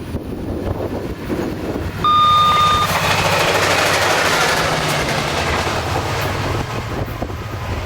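SunRail commuter train passing at speed: a steady diesel locomotive drone with wheel and rail noise that swells suddenly about two seconds in and slowly eases off. A single short, high beep sounds just as the noise swells.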